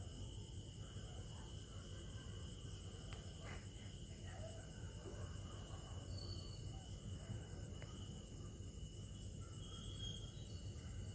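Faint steady background hum with a thin, steady high-pitched tone over it, and a few light clicks from the work on the bench.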